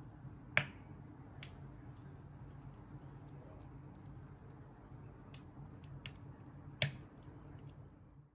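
Wood fire in a chiminea crackling faintly, with a few sharp pops, the loudest about half a second in and near the end, over a steady low hum.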